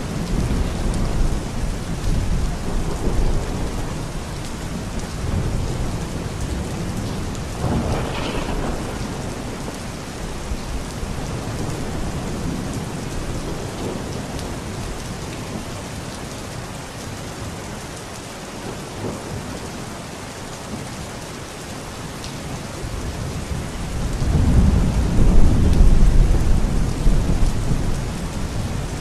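Steady rain with rolling thunder. A longer, louder rumble of thunder swells up near the end.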